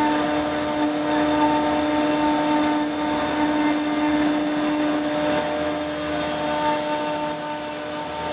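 CaMaster CNC router's spindle running steadily while a tapered carving bit mills a 3D profile in wood: a constant machine hum with a high whine that dips briefly a few times.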